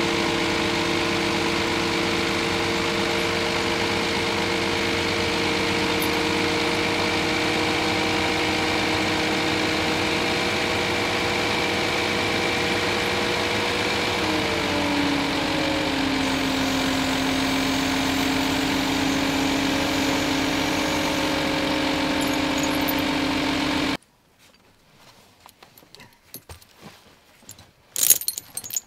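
Diesel engine of a Ponsse Scorpion harvester idling steadily, its hum stepping down to a lower, slower idle about halfway through. After about 24 s the engine sound gives way abruptly to quiet, with metallic clinks of steel tyre chains being handled near the end.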